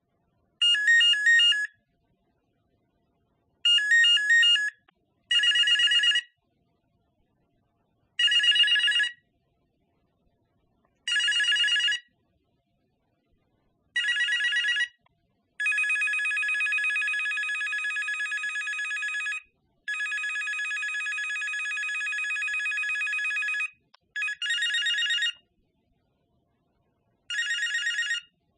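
A series of telephone ring tones. Most are short warbling rings of about a second, separated by silence. Two longer rings of about four seconds each come near the middle.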